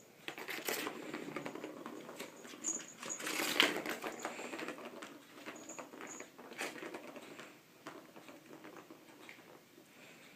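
A cat scrambling and pawing at things: a busy run of rustles, taps and scratches, loudest about three and a half seconds in and thinning out near the end.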